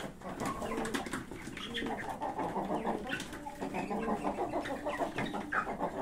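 Domestic chickens and pigeons calling in a shared coop: a continuous run of short, low clucking and cooing calls, with small clicks and scratches mixed in.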